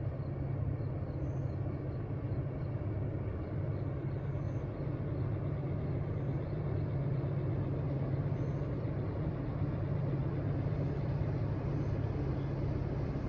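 Intermodal freight train rolling past at speed: a steady, deep rumble of wheels on rail with no horn.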